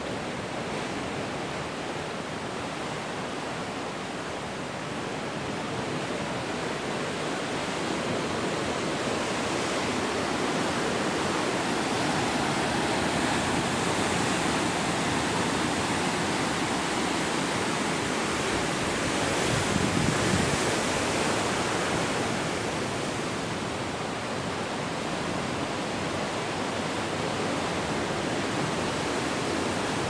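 Surf breaking on a rocky shore: a continuous wash of waves that grows louder through the middle and eases again near the end.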